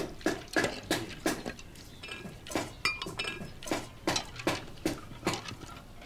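Ceramic bowls and plates clinking and clattering against each other as dishes are handled, with a quick run of clinks at first and then more irregular knocks.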